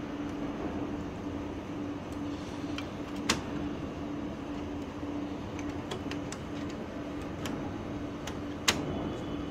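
Two sharp clicks about five seconds apart as the laser printer's pickup solenoid and the plastic and metal parts around it are handled and fitted into place, over a steady low hum.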